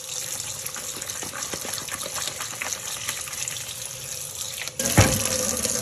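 Kitchen tap running into a bowl while cut potatoes are washed by hand in it, with small knocks of the pieces against the bowl. About five seconds in there is a sudden loud hit, after which the water runs louder.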